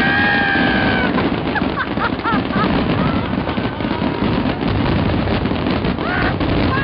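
A dense barrage of fireworks going off, with bursts and crackling almost without a break. A few high whistling or whooping tones rise and fall over the bangs near the start, a couple of seconds in, and near the end.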